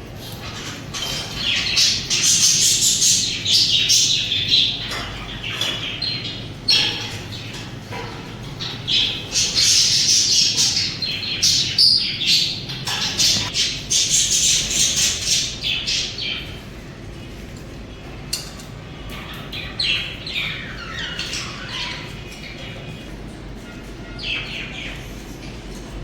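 A group of budgerigars chattering, with chirps and squawks. It is densest and loudest in the first half and thins out in the second.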